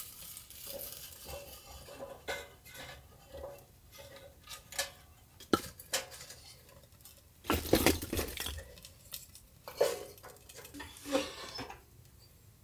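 Metal clinks and knocks from a small metal wood stove as tinder and kindling are handled in its firebox and its door is worked, with light rustling in between. The knocks come one by one, and the loudest cluster is a little past halfway.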